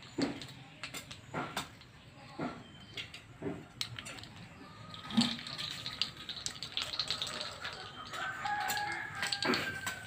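A rooster crowing with long drawn-out calls through the second half, over scattered short clicks and taps.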